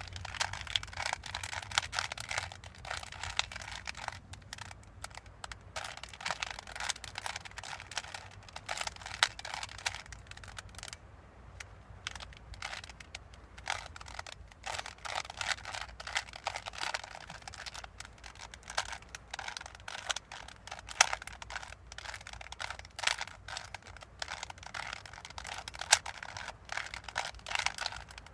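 Plastic Rubik's Cube being turned rapidly by hand, its layers clicking and clacking in quick, uneven runs as it is worked toward the solve.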